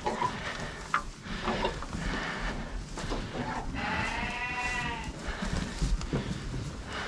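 A sheep bleats once, a long call of just over a second about four seconds in, rising and then falling in pitch. It is the noise of a flock waiting to be fed hay. Scattered knocks and rustling sound around it.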